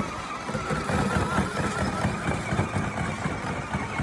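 Electric toy car running: a wavering whine that fades out over the first second and a half, over a dense, uneven low rumble.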